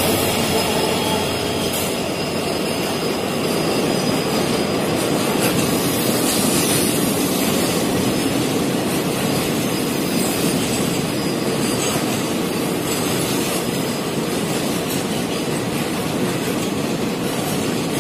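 A diesel-hauled passenger train passes close by. The locomotive goes by at the start, then the coaches roll past with a steady rumble of wheels on the rails and a thin, high wheel squeal.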